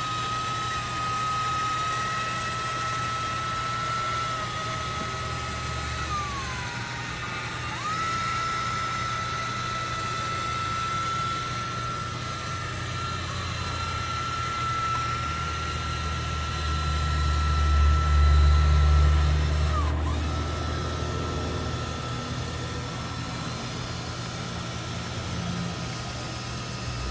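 Electric drive motor of an Adapt Solutions Link motorized transfer seat whining steadily as it moves the seat. The whine falls away and restarts about seven seconds in, dips once more about twenty seconds in, and a low hum swells underneath shortly before that.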